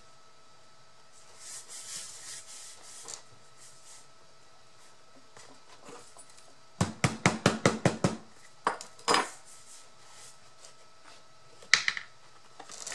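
Objects being handled on a work table: a rapid run of about nine sharp taps in a little over a second, then a few single knocks, with faint rustling before them.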